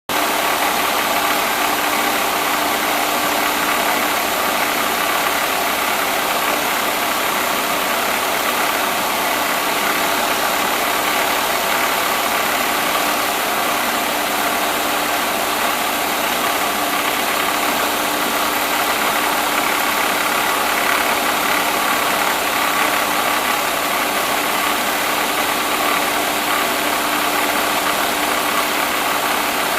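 Mercedes-Benz W124 engine idling steadily with the AC compressor running and its clutch staying engaged, with no on-off cycling, its pressure switch bypassed with a jumper wire. A constant hum with a steady whir over it.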